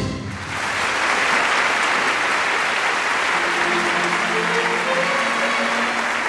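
Theatre audience applauding, breaking out just as the orchestra's chord dies away. About three seconds in, the orchestra starts playing again softly beneath the applause.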